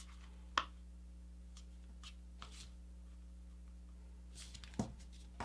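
A sheet of paper being folded and creased flat by hand: a few faint, brief rustles and scrapes of paper, the sharpest about half a second in and another near the end, over a low steady hum.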